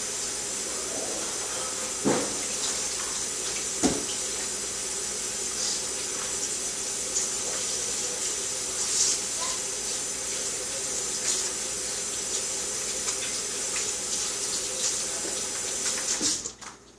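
Water running steadily from a tap into a sink, with a couple of sharp knocks, shut off near the end.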